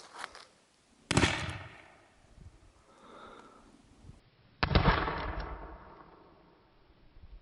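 Homemade cardboard-tube firework mine going off: two sharp bangs about three and a half seconds apart, each ringing out for a second or so, the second the loudest.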